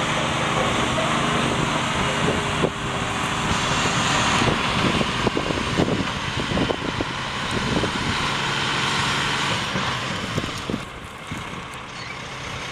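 Cummins M11 inline-six diesel of a 1998 Ford LT9511 tri-axle dump truck running as the truck drives across rough ground. The engine note drops and grows quieter about ten seconds in as the truck slows.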